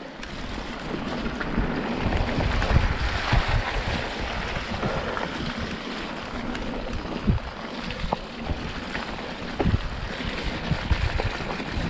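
Mountain bike riding fast down a wet trail: wind rushing over the action camera's microphone and tyres hissing through water and mud, with several sharp knocks as the bike jolts over bumps.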